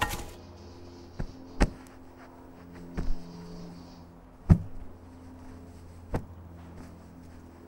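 A limp body being handled and rolled over dirt and grass: about five scattered thuds and scuffs, the loudest about four and a half seconds in, over a low steady drone.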